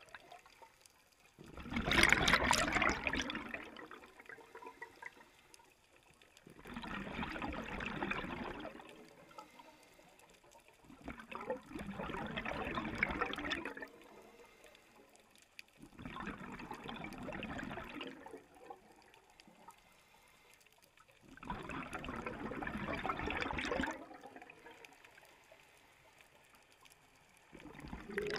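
Scuba regulator exhaust heard underwater: a diver breathing out in bursts of bubbling about every five seconds, with quiet inhalations between. Five full exhalations, the first the loudest, and a sixth beginning at the very end.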